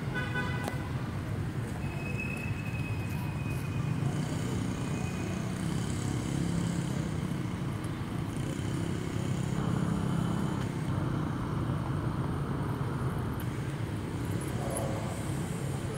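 Steady low outdoor rumble with no clear events, and a brief thin high tone about two seconds in.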